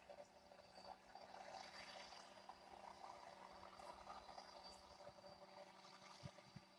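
Near silence: a faint steady hum and hiss, with two soft knocks near the end.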